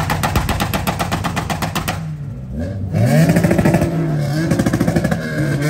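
A rapid, even string of sharp cracks, about ten a second, like a string of firecrackers going off, for about two seconds. After a short lull, an engine revs up repeatedly in rising surges.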